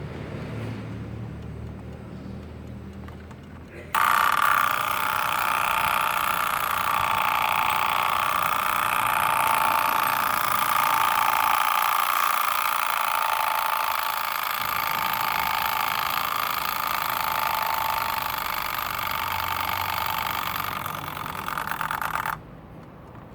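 Lauris alarm clock's alarm ringing loudly and continuously. It starts suddenly about four seconds in, runs for about eighteen seconds, and stops abruptly.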